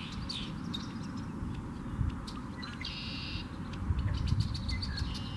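Wind buffeting the microphone as a steady low rumble that gusts louder a couple of times, with a short bird call about three seconds in and faint high chirps in the marsh.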